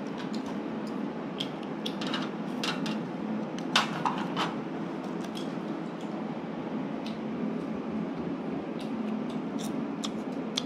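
Scattered clicks and taps of chopsticks and utensils against bowls and a steel tray, the sharpest about four seconds in, over a steady room hum.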